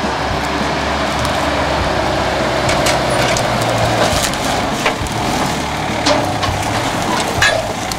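A 4WD ute's engine running steadily at low speed as the vehicle crawls through scrub, with branches and sticks snapping and scraping under and against it several times from about three seconds in.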